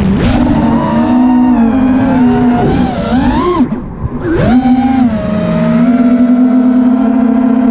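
FPV quadcopter's brushless motors and propellers whining, the pitch rising and falling with the throttle. About halfway through the throttle drops off briefly as the drone flips, then the whine holds steady.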